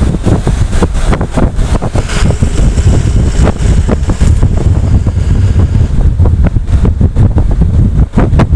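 Wind buffeting the microphone: a loud, unsteady low rumble with frequent crackling pops.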